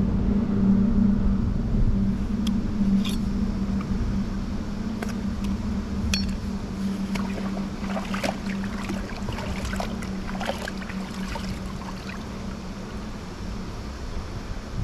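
A steady engine drone that slowly fades away, with scattered small clicks and taps of hands, knife and catch being handled on a wet rock, most of them in the middle part.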